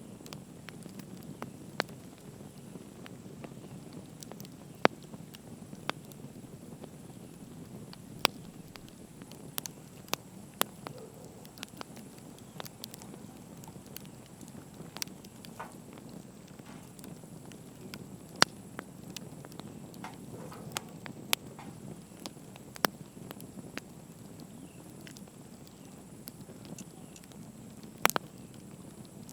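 Wood fire crackling: sharp, irregular pops and snaps over a low steady rumble.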